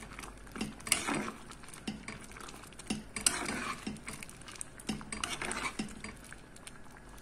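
A steel ladle stirring thick spinach dal in a coated pot, scraping and knocking against the pot in uneven strokes about every two seconds.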